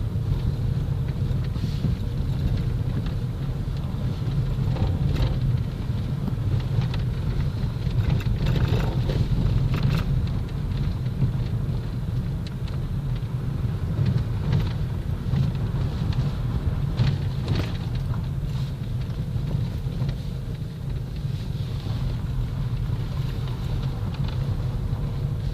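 Moving vehicle's steady low rumble of road and wind noise, with a faint steady hum and occasional light knocks or rattles.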